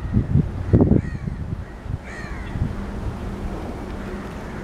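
A bird gives a few short arched calls over a low rumble of wind on the microphone, with a faint steady drone from an approaching WDM-3A diesel locomotive.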